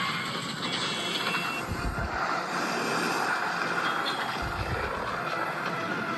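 Film soundtrack of a sandstorm: dense rushing wind and blowing sand, with two deep rumbles, about two seconds in and again about four and a half seconds in.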